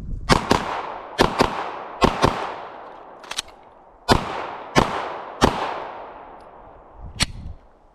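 About ten gunshots fired in a timed shooting drill, some in quick pairs and some single, each with a long ringing echo. The last shot comes about five and a half seconds in, followed by a lighter click near the end.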